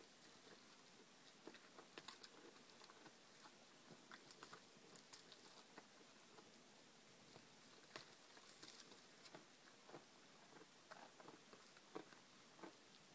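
Cow moose and calf munching willow twigs, heard faintly as irregular soft clicks of chewing.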